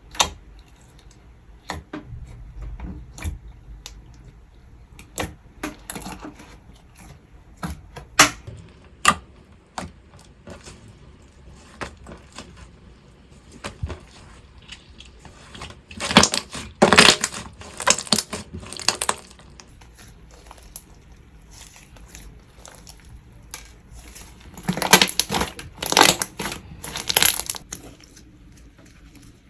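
Butter slime being squished and poked by hand, giving scattered soft clicks and pops. There are two longer runs of loud crackling pops, one about halfway through and one near the end.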